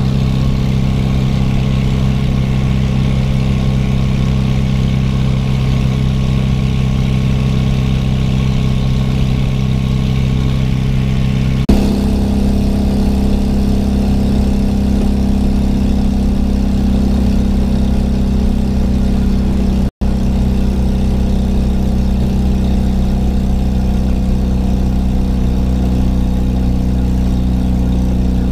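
Polski Fiat 126p's two-cylinder 650 engine running steadily at motorway cruising speed, heard loud from inside the small cabin, with its exhaust silencer failed.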